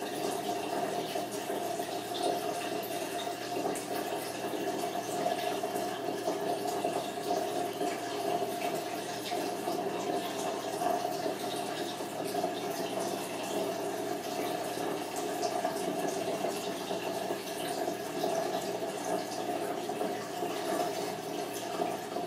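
Steady rushing noise with a constant hum running under it, even throughout.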